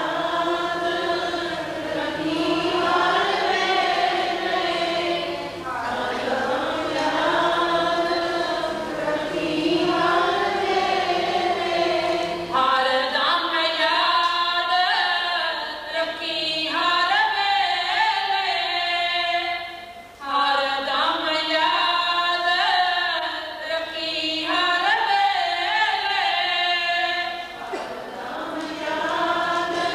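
A group of voices chanting in unison in long, drawn-out sung phrases, a devotional chant. About twelve seconds in, the singing moves higher and brighter.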